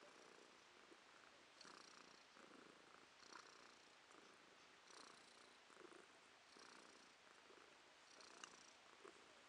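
Domestic cat purring faintly, swelling and easing in a steady rhythm with each breath, about once every second and a half.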